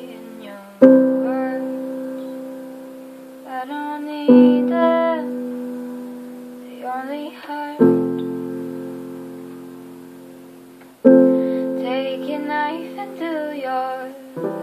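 Piano playing an instrumental passage of a slow song: a chord struck about every three and a half seconds, four times, each ringing and fading away, with lighter higher notes in between.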